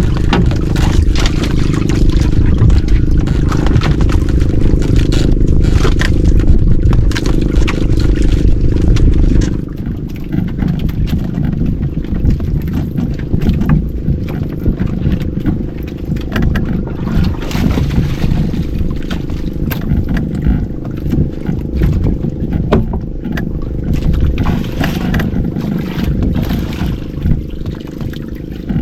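Small fishing boat's engine running steadily, dropping markedly in loudness about ten seconds in, with scrapes and knocks over it.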